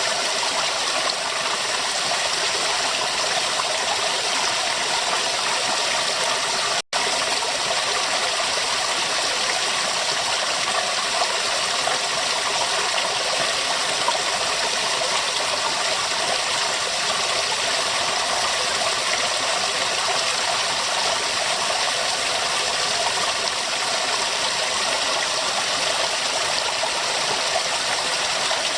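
River water running steadily, a dense rushing and crackling flow with no change in strength. It cuts out for a split second about a quarter of the way in.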